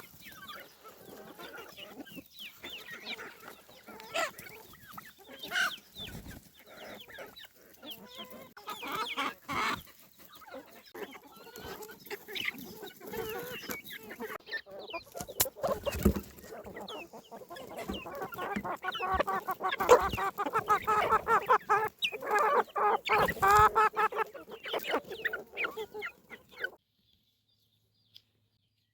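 Chickens clucking: many short, scattered calls that grow into a busy run of clucking about two-thirds of the way in, then stop abruptly shortly before the end.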